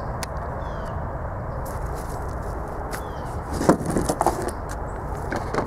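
Honda GC190 single-cylinder overhead-cam engine running steadily, with a few short knocks about two-thirds of the way through and near the end.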